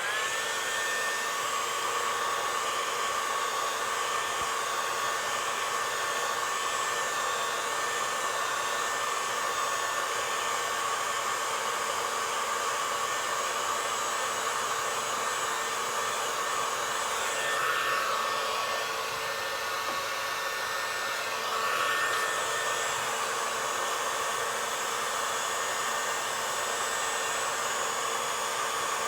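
Heat gun switched on and running steadily: an airy blowing with a steady fan whine, heating the bent grille bar to straighten it. The whine shifts briefly around the middle, then settles again.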